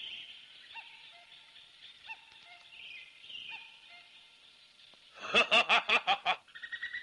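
Faint, sparse bird chirps, then about five seconds in a man laughs loudly in a quick run of about eight short "ha" beats, followed by a steady high bird trill.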